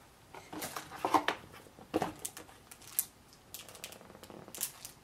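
Irregular rustling and sharp clicks from handling unboxed merchandise and its packaging: cloth being bundled up, then a small pin card being handled. The loudest rustles come about one and two seconds in.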